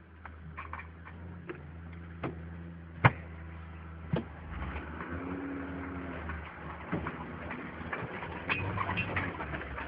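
Cabin of a Mercedes-Benz G-Class 'Wolf' driving off-road: a steady low engine drone, with sharp knocks and rattles from the body over rough ground. The two loudest knocks come about three and four seconds in.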